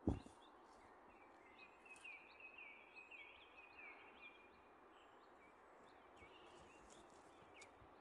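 A sharp low thump right at the start, then faint birdsong: a small songbird sings a quick run of short sliding notes for a few seconds, with scattered chirps from other birds over a faint steady hiss.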